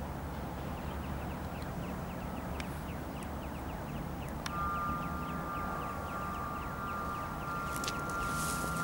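Distant drone of a Cessna 172M's four-cylinder piston engine. A fast series of light chirps runs through it, and about halfway in a steady high two-note tone starts and holds.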